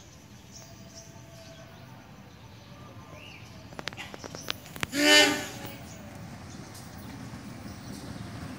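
Diesel locomotive air horn sounding one short blast of about half a second, about five seconds in, from a passenger train approaching slowly. A low rumble of the oncoming train grows toward the end.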